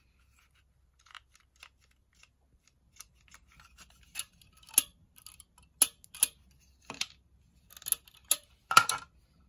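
Small plastic toy crossbow being handled: a run of irregular plastic clicks and taps, sparse at first, then more frequent and sharper in the second half, with the loudest snap near the end.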